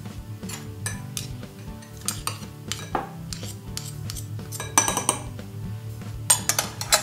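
Metal teaspoons clinking and tapping against each other and a glass tumbler as turmeric paste is scraped off one spoon with another. There are several sharp clinks, the loudest about five seconds in and again near the end.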